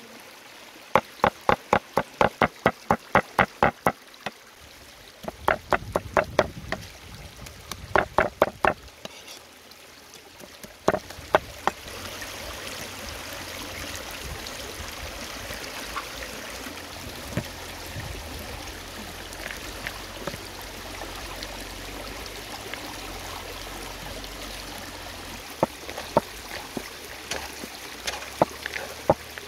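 Meat cleaver chopping pork on a wooden chopping board, quick even strokes about four a second, then a few more bunches of chops until about eleven seconds in. After that a stream runs steadily, with a few faint clicks near the end.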